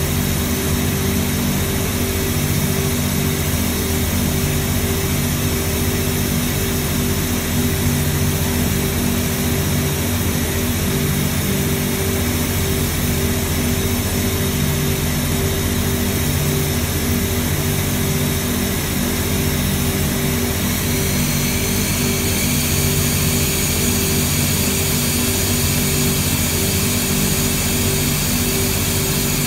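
Temperature forcing system running: a steady machine drone with several low hum tones under an even air hiss. About two-thirds of the way through, the hiss changes character while the unit switches from cold to hot air.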